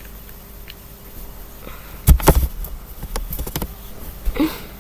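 Handling knocks and clicks: a loud bump with a low thud about two seconds in, then a cluster of lighter clicks, and a short pitched vocal sound near the end.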